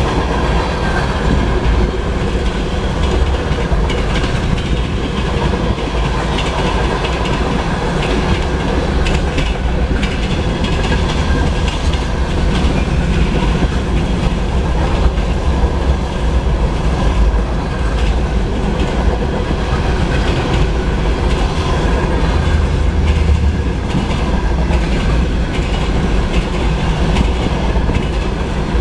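Freight train of covered hopper cars rolling past at steady speed: a continuous low rumble of steel wheels on rail, with scattered clicks and clacks as the wheels pass over the rail joints.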